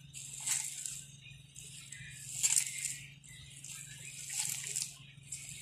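A hand kneading crumbly chhana (fresh cheese curd) with flour and sugar on a plate: gritty, swishing rubbing strokes against the plate, swelling about every two seconds, over a faint steady low hum.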